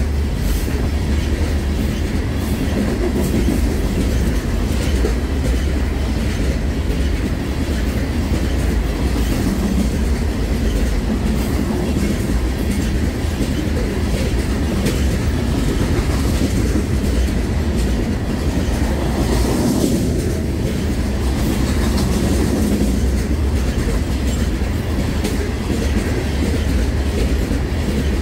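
Loaded covered hopper cars of a sand train rolling past: a steady rumble of steel wheels on rail, with repeated clickety-clack as the wheels cross rail joints.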